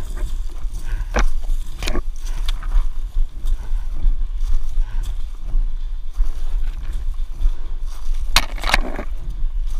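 Rustling and crackling of dry leaves and brush as a player pushes through undergrowth, over a constant low rumble of handling noise on the body-worn microphone. Several sharp cracks stand out: two about a second apart early on and a close pair near the end.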